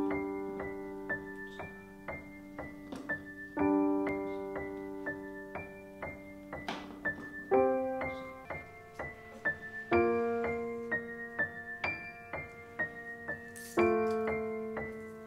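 Solo piano background music: a slow piece with a new chord struck about every four seconds and lighter notes repeating quickly between them.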